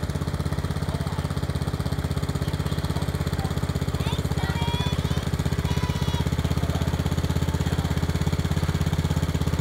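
Riding lawn mower's engine running steadily as the mower drives slowly along, a rapid, even putter.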